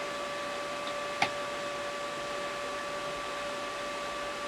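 Steady background hiss with a faint, even electrical whine from workbench equipment, and a single light click about a second in.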